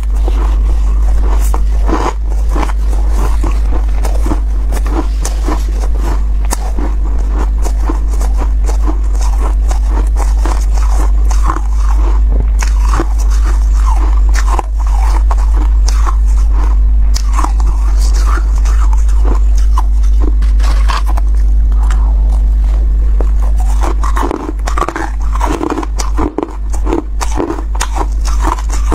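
A mouthful of freezer frost being chewed: dense crisp crunching over a steady low hum, the crunches growing more spaced apart near the end.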